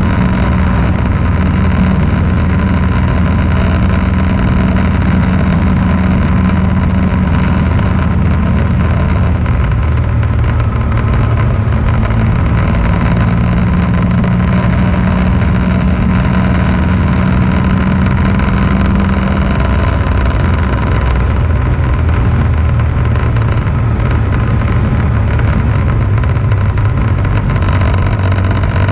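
Motorcycle engine running steadily under way, its pitch stepping up and down a few times with speed and gear, over steady rushing wind and road noise.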